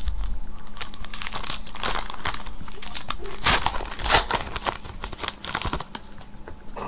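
Foil wrapper of a Panini Prizm trading-card pack crinkling and tearing as it is ripped open and peeled back by hand. A run of sharp crackles is thickest in the middle and thins out near the end.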